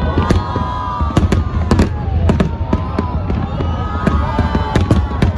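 Aerial fireworks bursting: many sharp bangs in quick, irregular succession over a steady low rumble, with long, wavering whistle-like tones running through them.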